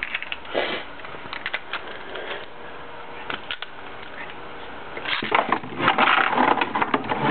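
Small clicks and light handling of Beyblade tops for about five seconds, then the tops are launched into a plastic Beyblade Metal Fusion stadium and spin there with a loud, dense rattling scrape.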